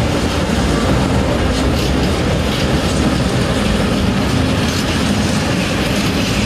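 Freight train of tank wagons rolling past close by: a loud, steady rumble of steel wheels on the rails, with clatter as the wheels cross the rail joints.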